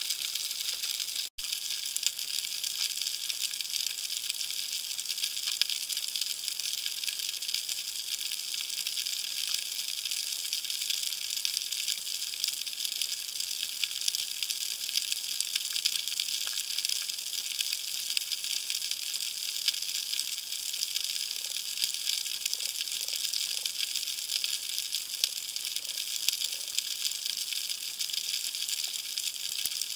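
Steady underwater crackling hiss picked up by a camera sitting submerged in the surf, dense fine crackle in the upper range with little low sound. It cuts out for an instant about a second in.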